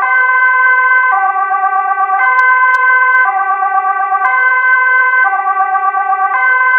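Indonesian railway level-crossing warning siren: an electronic two-tone alarm that alternates between two pitches about once a second, over a steady high tone that holds throughout.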